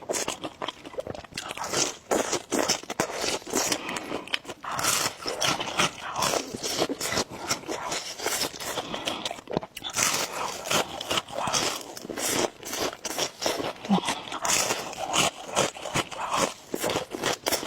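Crunchy food being bitten and chewed close to the microphone: a long run of crisp, irregular crunches.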